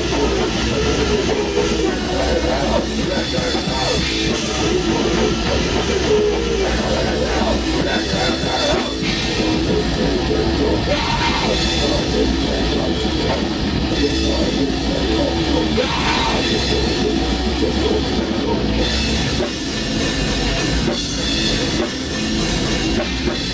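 Black metal band rehearsing live: distorted electric guitar over a drum kit, playing loud and without a break.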